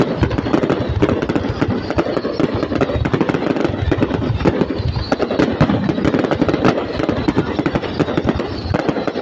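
Fireworks display: a dense, continuous barrage of bangs and crackling reports, with no pause.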